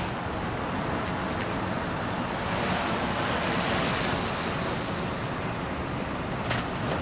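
2001 Cadillac DeVille with its 4.6-litre V8 driving slowly past on concrete: a steady rush of tyre and engine noise that swells as the car comes closest, about three to four seconds in, then eases off a little.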